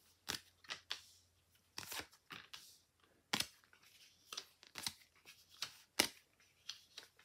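Lenormand cards being drawn off a deck and laid down one by one on a tabletop: a string of about a dozen sharp card snaps and taps at an uneven pace.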